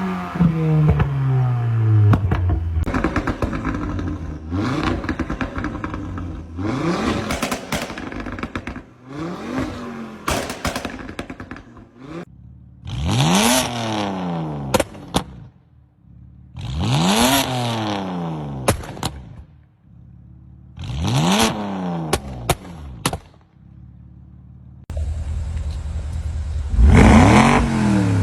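Car engines revved in a series of short blips, each rising and falling in pitch, followed by rapid exhaust crackles and pops as the revs drop. The pops come as the throttle closes and unburnt fuel ignites in the exhaust.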